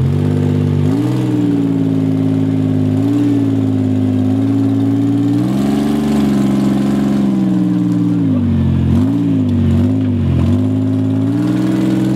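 Engine of a tube-chassis rock-crawler buggy revving under load as it climbs a steep dirt slope. The pitch rises about a second in, climbs again around the middle, then dips and rises quickly a few times before settling.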